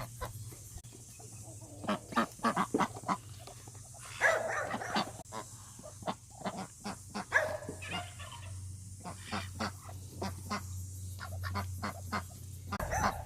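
Farm geese honking at feeding time, many short calls overlapping, with a steady low hum underneath.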